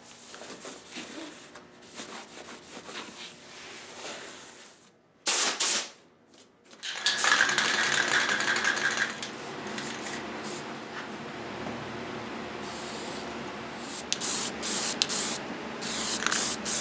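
Aerosol spray can spraying black satin lacquer: a short spurt about five seconds in, then a long steady hiss from about seven seconds, and several short spurts near the end. Before that, faint rubbing of fine sandpaper by hand.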